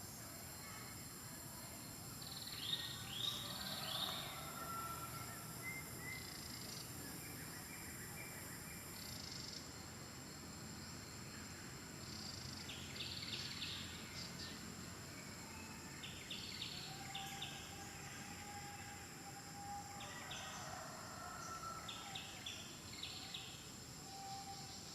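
Faint birdsong: scattered series of short, high chirps, clustered about 3 s in, around 13 s, around 17 s and again from about 20 s, over a steady high-pitched hum.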